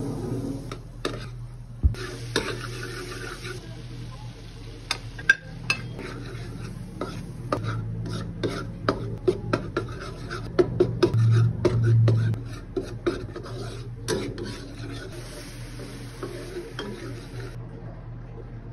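Metal spatula stirring and scraping a bubbling flour-and-oil mixture in a pan, with many irregular clicks of metal on metal and a faint sizzle, over a steady low hum.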